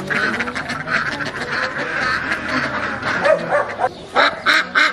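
A flock of domestic ducks quacking, with a fast run of loud, evenly spaced quacks, about four a second, near the end.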